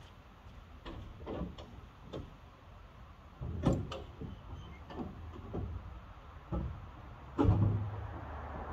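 Scattered knocks and clunks of someone moving things about off to the side, with low rumbling clunks about three and a half seconds in and a louder one near the end.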